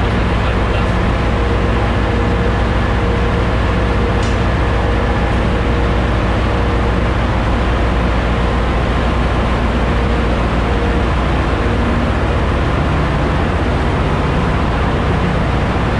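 Ship's engine-room machinery running: a loud, steady drone with several steady low hum tones underneath.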